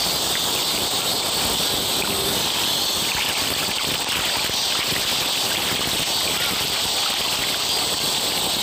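Steady outdoor ambience from a beach video clip playing back, a constant even hiss strongest in the high range, with no distinct events.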